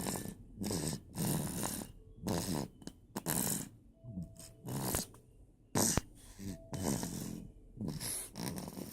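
Snoring: noisy, snorting breaths that come again roughly once a second, irregularly spaced.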